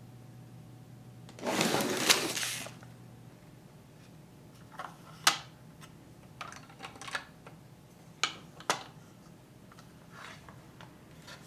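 Hard plastic parts of a toy chocolate-coin making machine being handled: a noisy rustle lasting a little over a second near the start, then a scatter of sharp clicks and taps as lids and parts are opened and set down.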